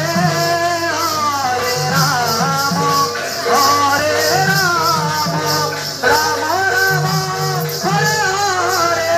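Live Odia kirtan music: a swooping sung melody over a fast, steady jingle of hand cymbals and a repeated low drum beat.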